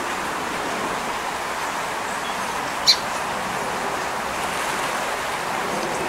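Steady outdoor background hiss, with a single short, high chirp near the middle.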